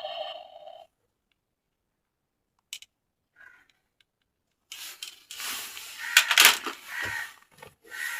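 A pitched electronic sound, likely from a toy, cuts off abruptly under a second in. After a pause with a couple of small clicks, crinkly plastic toy packaging is handled and unwrapped, loudest about two-thirds of the way through.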